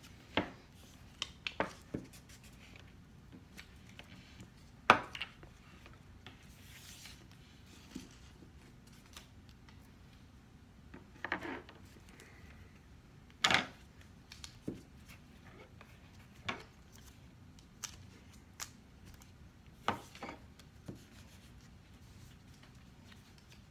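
Quiet handling of paper cut-outs and glue sticks on a table: scattered light taps, clicks and paper rustles, the sharpest about five seconds in and again near the middle.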